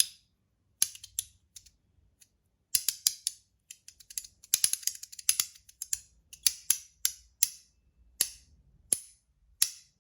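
ACEDC zirconium mini milk cap, a magnetic haptic coin fidget, snapping: sharp, crisp clicks of zirconium parts snapped together by magnets. A few single snaps, a short pause, a quick flurry of snaps, then steady single snaps about two a second.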